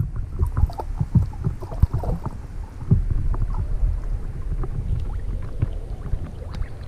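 Shallow water sloshing and churning close to the microphone, with a low rumble and scattered knocks and clicks as a speared snapper is handled on the spear shaft.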